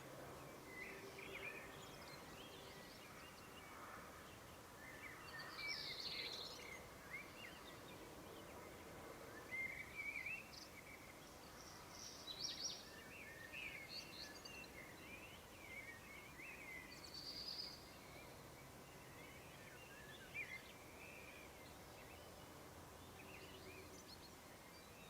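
Faint outdoor ambience: several birds chirping and calling in short, scattered bursts over a steady low background hiss.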